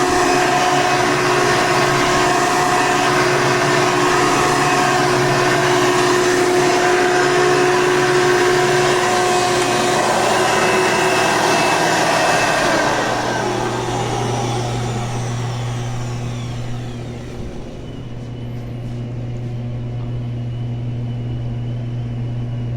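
8-amp Hoover Elite vacuum cleaner motor running steadily at full speed, then switched off about 13 seconds in, its whine falling in pitch as the motor spins down over several seconds. A quieter steady low hum remains near the end.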